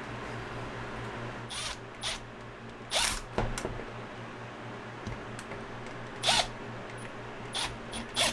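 Milwaukee cordless impact driver run in short trigger pulls, about nine brief bursts of a fraction of a second each, driving in the gear-head screws of a Bosch angle grinder. A steady low hum runs underneath.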